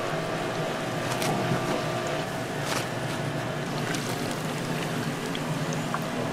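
Hot oil in a deep fryer sizzling and bubbling steadily around battered, sausage-wrapped fish cakes, with a few sharp metallic clicks of steel tongs and a faint steady hum underneath.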